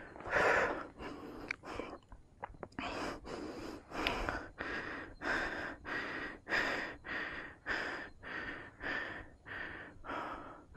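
A man panting hard, quick noisy breaths about two a second, out of breath from climbing a steep mountain trail.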